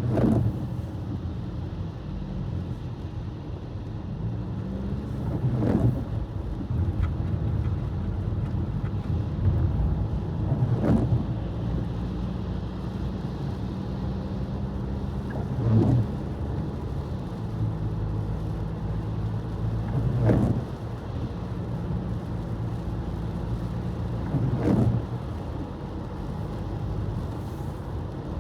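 Car driving on a wet, snowy road: a steady engine and road hum, with a short swish about every five seconds.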